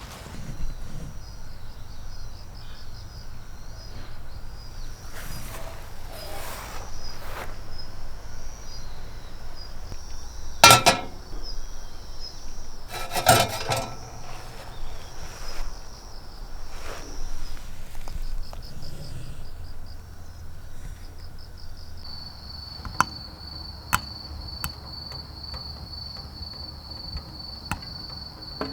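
Insects chirping in a steady high trill, pulsing at first and then continuous from about two-thirds of the way through. Scattered sharp clicks and two louder knocks sound over it, about a third and halfway in.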